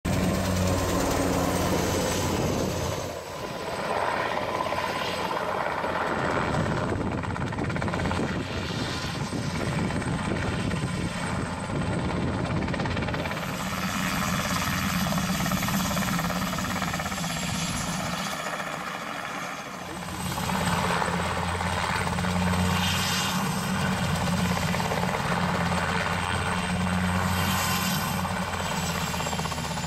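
Syton AH130 ultralight helicopter running, its rotor and Solar T62 turbine heard from across the airfield as it flies close to the ground. The sound is steady and changes level a few times, dipping a few seconds in and again about two-thirds of the way through.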